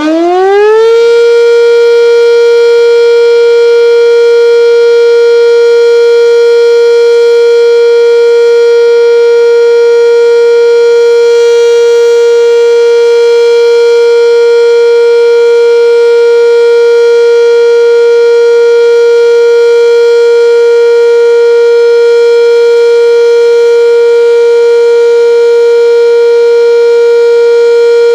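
Sentry 10V electromechanical outdoor warning siren sounding a Full Alert: its pitch finishes climbing in the first second, then holds one steady, loud tone.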